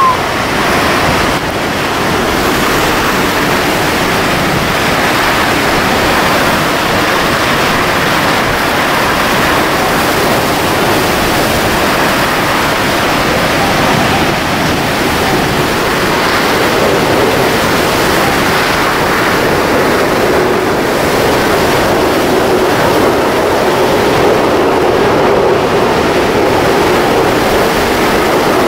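Hurricane-force wind and driving rain: a loud, steady rushing noise. A faint steady howl joins in about halfway through.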